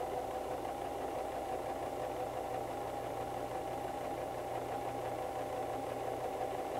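White 1735 electric sewing machine running steadily at an even speed, its needle stitching a row of long basting stitches through cotton fabric.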